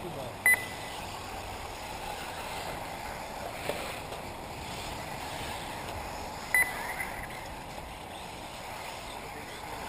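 Electric 1/8-scale off-road RC buggies running around the track, a steady whir and hiss of motors and tyres on the dirt. Two short high beeps come about half a second in and again about six and a half seconds in.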